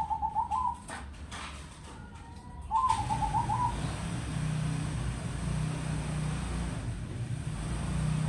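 Crossing-line perkutut (zebra dove) singing twice, at the start and about three seconds in: each phrase a rising opening note followed by a quick run of rolling notes. From about three seconds in, a steady low hum and hiss sits underneath.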